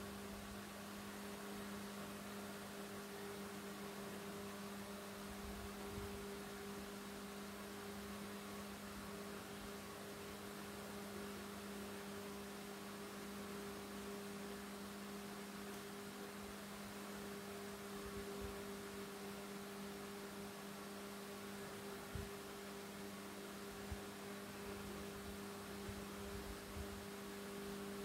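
Steady hum made of two level tones, a lower and a higher one, over faint hiss, with a few soft low knocks scattered through it.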